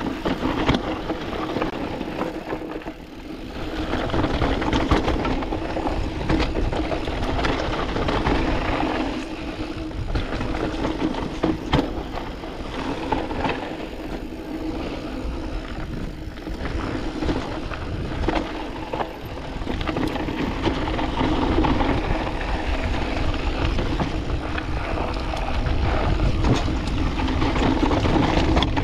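Canyon Spectral AL 6.0 full-suspension mountain bike riding down a dusty, rocky trail: tyres rolling and crunching over loose dirt and stones, with scattered sharp clicks and knocks from the bike rattling over rocks. Wind rumbles on the chest-mounted microphone throughout.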